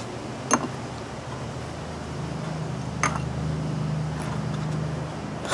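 Homemade twin-cylinder engine made from two Briggs & Stratton single cylinders, running with no muffler as a steady low hum that picks up a little about two seconds in, with a couple of faint clicks. It is not running right, which the builders put down to the carburetors, one of them possibly clogged.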